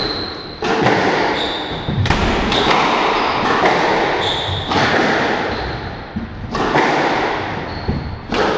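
Squash rally: the ball is struck by rackets and slams off the court walls at uneven gaps of about a second or two, each hit echoing, with short high squeaks of shoes on the court floor.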